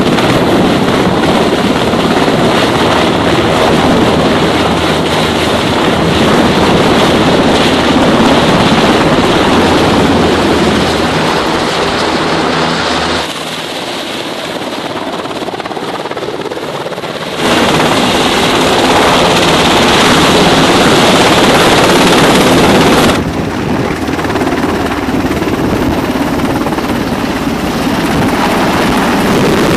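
Navy MH-60 Seahawk helicopter hovering low, a loud steady noise of rotor and rotor wash. The sound is cut abruptly about 13 seconds in, thinner and quieter for a few seconds, returns full about 17 seconds in, and changes again abruptly about 23 seconds in.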